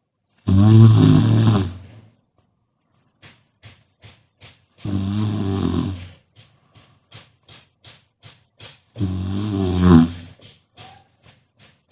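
A sleeping person snoring: three loud snores about four seconds apart, each lasting about a second and a half, with faint short clicks between them.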